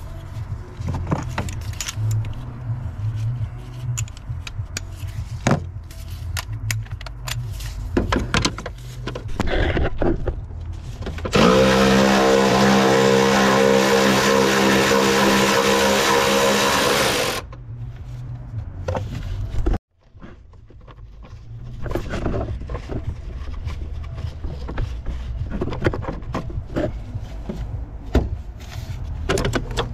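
Clicks and knocks of tools being handled in a van's engine bay, and in the middle a cordless electric ratchet running steadily for about six seconds as it spins out a bolt on a long socket extension.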